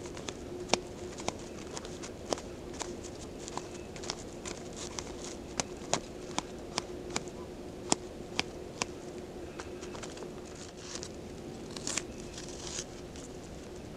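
A knife slicing portobello mushrooms on a foam tray: short, sharp ticks, roughly one or two a second, thinning out after about ten seconds.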